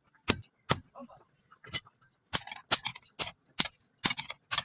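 Hammer blows on steel at an anvil: two loud ringing strikes in the first second, then after a short pause a quicker run of lighter blows, about two or three a second.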